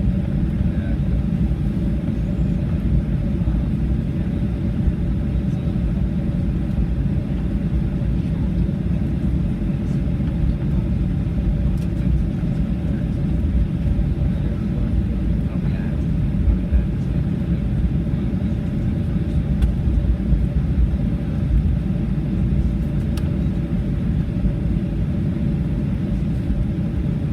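Cabin noise inside a Boeing 737-800 taxiing after landing: a steady low rumble from the idling CFM56 engines and the wheels on the taxiway, with a faint steady hum running through it.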